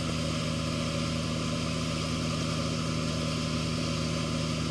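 Wake boat's inboard engine running steadily under way, an even low drone, over a steady hiss of churning wake water.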